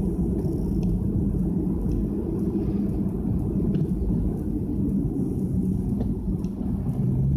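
Nissan Fuga 350GT's 3.5-litre V6 running through a one-off quad-outlet aftermarket exhaust at steady cruise, heard from inside the cabin with tyre and road rumble. The engine note drops lower near the end.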